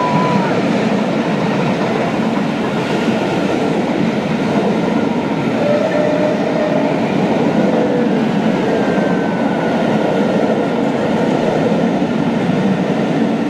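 Passenger coaches of a steam-hauled train running past at speed, their wheels rumbling and clattering steadily over the rails, with a faint squeal from the wheels now and then.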